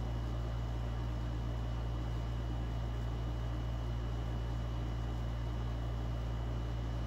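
Window air conditioner running with a steady low hum and a faint, steady high whine above it.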